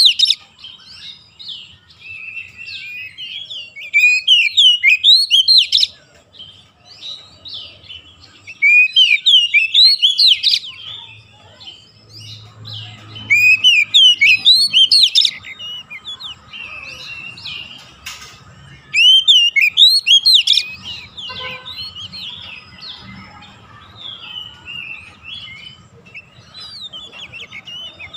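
Oriental magpie-robin singing without pause: loud bursts of quick rising and falling whistled phrases about every four to five seconds, with softer twittering and chatter in between.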